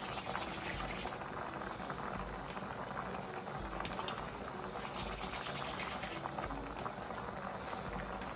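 A pot of Jamaican stew peas with dumplings bubbling on the stove, a steady bubbling with many small pops.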